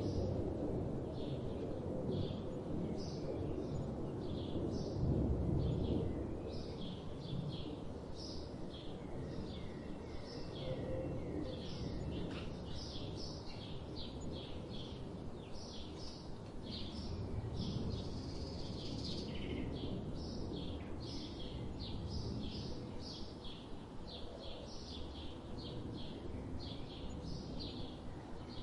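Songbirds chirping and twittering in quick, overlapping short calls, over a steady low rumble of background noise that is louder for the first few seconds.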